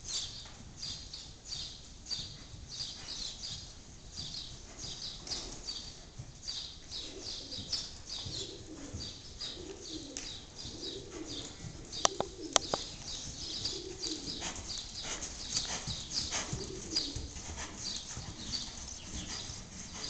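Gypsy Vanner horse's hooves beating in a steady rhythm on soft arena sand under a rider. From about the middle, a pigeon coos in a run of low calls, and two sharp clicks about half a second apart stand out as the loudest sounds.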